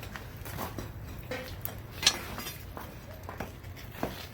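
Metal tongs clinking and knocking against the bricks of a clay tatara smelting furnace as a brick is worked loose: a few scattered sharp knocks, the loudest about two seconds in.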